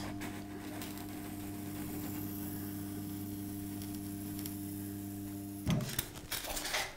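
Steady electric hum of a Proxxon hot wire foam cutter, switched on while its heated wire slices foam. The hum cuts off suddenly about five and a half seconds in, followed by a few light clicks and rustles of the foam being handled.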